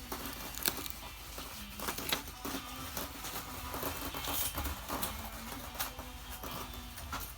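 Irregular sharp clicks and rustling as small objects, likely packaging or phone parts, are handled at close range.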